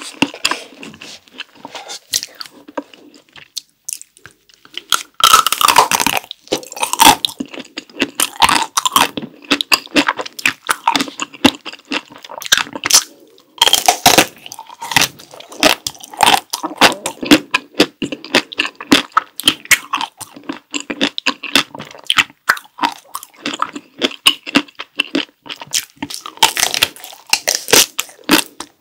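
Close-miked eating of a chocolate-coloured dessert: bites and steady chewing full of crisp crackles, with louder bites about five seconds in and near the middle.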